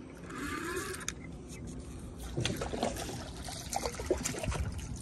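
A hooked sheepshead splashing at the water's surface, with scattered knocks and clicks.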